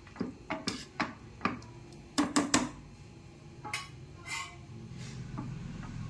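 Metal ladle stirring soup in a pressure cooker pot, clinking and knocking against the metal pot several times in quick succession in the first half, then twice more faintly.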